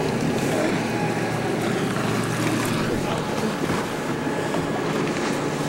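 Regal motorboat's engine running at low speed while stopped in the water, a steady hum mixed with water noise and wind buffeting the microphone.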